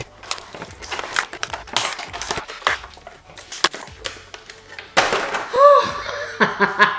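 Clear plastic packaging crinkling and crackling as hands crumple it to free small accessories wrapped inside. A brief voiced exclamation comes near the end.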